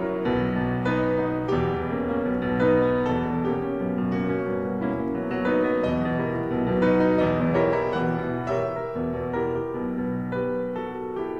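Solo piano music, a steady flow of notes in a moderate tempo, growing softer near the end.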